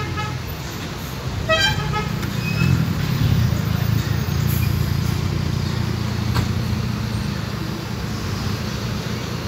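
City bus engine running close by, a steady low rumble, with a brief horn-like toot about a second and a half in.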